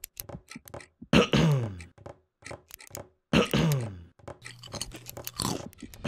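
A person's repeated nervous-tic noises: quick irregular clicks and smacks, broken twice by a louder throaty grunt that slides down in pitch.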